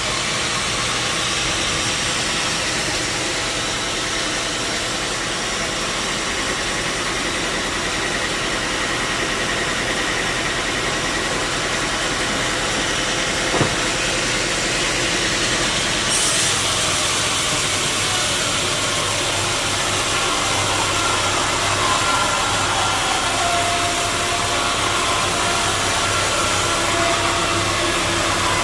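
Sawmill saw machinery running steadily, a continuous mechanical noise with a single sharp knock about halfway through. Just after the knock the sound turns brighter, and a faint wavering whine comes in later.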